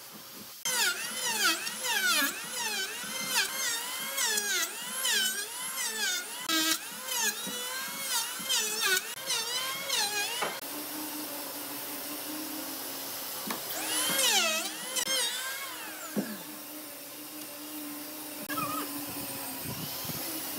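Handheld electric power tool cutting into a dry tree stump, its motor whine dipping in pitch and recovering about twice a second as it bites into the wood and is eased off. After about ten seconds the whine runs steadier, with one more dip and rise a few seconds later.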